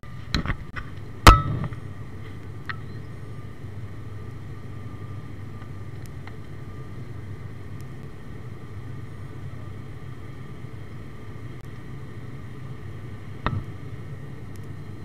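Steady drone of a high-wing turboprop airliner heard inside the cabin. A few sharp knocks in the first two seconds, the loudest about a second in, and one more near the end.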